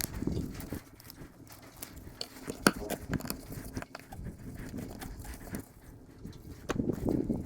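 Screwdriver working a drilled-out square-head screw loose: irregular scrapes and small clicks, with one sharp click about two and a half seconds in.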